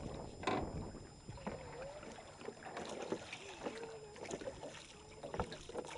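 Oars working homemade one-sheet plywood rowing skiffs: scattered splashes and knocks of the oars, with water noise throughout.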